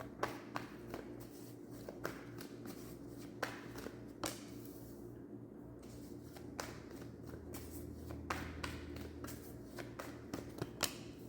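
Tarot cards being shuffled and handled: a run of irregular soft flicks and taps, over a faint steady electrical hum.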